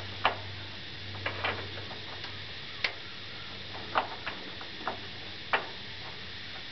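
Irregular short, sharp clicks and taps, about eight of them, as the front indicator lens of a 1977 Chevrolet C20 truck is handled and pressed into its housing, over a faint steady low hum.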